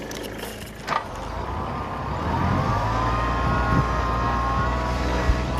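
Kubota B1820 compact tractor's diesel engine pulling a mouldboard plough through soil, rising in pitch and volume about two seconds in as it revs up, then running steadily. A click about a second in and a sharp knock near the end.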